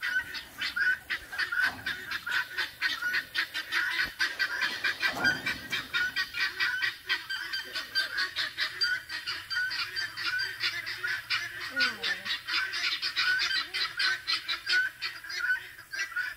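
A flock of farm fowl calling nonstop in short, evenly repeated notes, several a second, with a lower call sliding downward about twelve seconds in.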